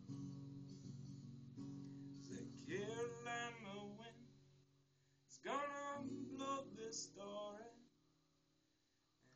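Acoustic guitar strummed, with a man singing two long drawn-out phrases over it as the song closes. The guitar rings out and dies away to near silence near the end.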